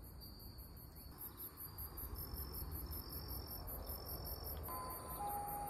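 Crickets trilling with high, steady notes in short stretches. About three-quarters of the way through, a Japanese ambulance siren comes in, alternating between a higher and a lower tone.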